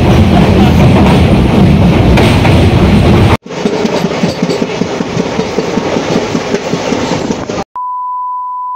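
Passenger train running on the rails, in two clips cut together: first a loud heavy rumble, then a quieter run with a rapid clatter of wheels over the rail joints. Near the end the train sound cuts out and a steady single-pitched electronic beep sounds for about a second.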